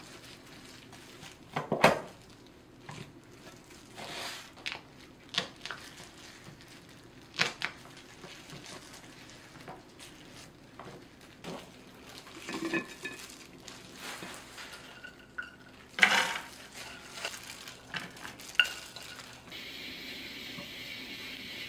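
A cleaver knocking on a wooden cutting board as green chili peppers are trimmed at the stem, then a metal fork pricking whole peppers on the board: scattered single knocks and light clinks, a second or more apart, the loudest about two seconds in and about sixteen seconds in. Near the end a steady hiss comes in.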